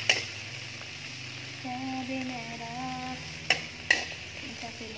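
Red chilies sizzling as they stir-fry in a wok, with a metal spatula scraping through them and clinking sharply against the pan once at the start and twice in quick succession about three and a half seconds in.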